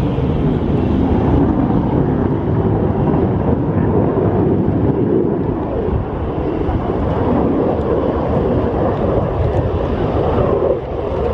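F-16 Fighting Falcon fighter jet engine, a loud steady rushing jet noise as the aircraft flies a display manoeuvre overhead.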